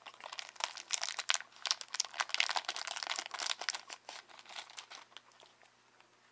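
Crinkling and rustling of card packaging as a stack of trading cards is unwrapped and handled, a dense crackle that thins out and fades near the end.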